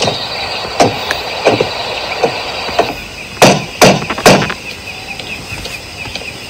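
A series of knocks: four lighter ones about two-thirds of a second apart, then three loud ones in quick succession about three and a half seconds in.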